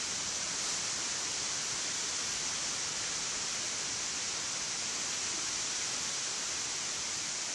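Steady, even hiss, brightest in the high range, with no distinct events or changes.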